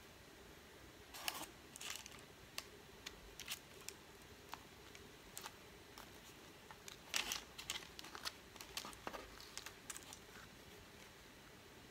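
Quiet hand-handling sounds of a burger being put together: scattered soft crinkles and light taps from the bun and the parchment paper lining the tray as the bun is pressed down and the burger picked up, with a brief louder rustle about seven seconds in.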